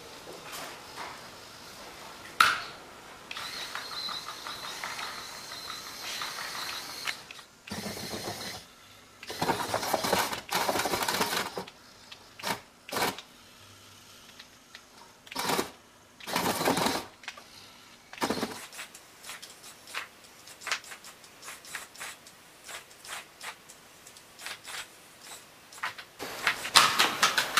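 Small robot's electric motors whirring in short bursts as its shell segments and legs move, with a run of short clicks and ticks from the mechanism, and a louder clattering burst near the end.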